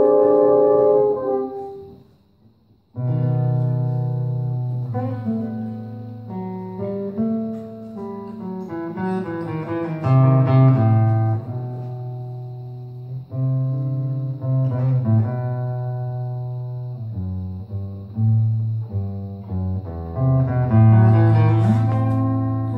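Brass band with flugelhorns playing together with a classical guitar. A held chord stops about a second and a half in; after a short pause the ensemble starts again at about three seconds, with sustained low bass notes under a moving melody.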